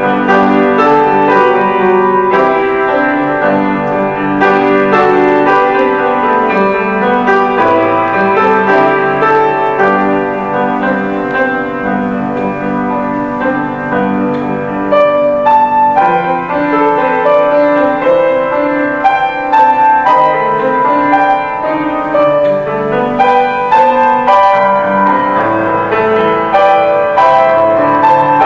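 Grand piano played solo: a continuous piece of chords and melody, the notes ringing over one another.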